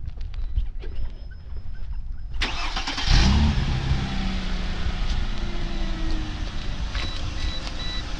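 Mercedes W163 ML320's 3.2-litre V6 cranked by the starter and catching about three seconds in, then settling into a steady idle. A beeping tone repeats near the end.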